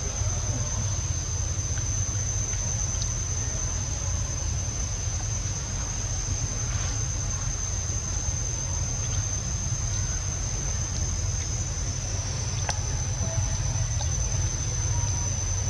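Insects droning steadily on one high note, over a constant low rumble, with a few faint clicks.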